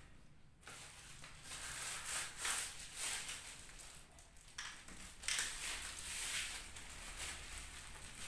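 Clear plastic wrapping crinkling and rustling as it is pulled off a vacuum cleaner's hose and wand tube, in irregular bursts that are loudest about two and a half and five seconds in.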